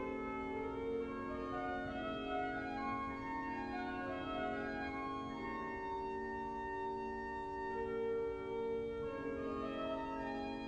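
Pipe organ playing a slow piece: sustained chords held without a break, with notes changing above them every second or so.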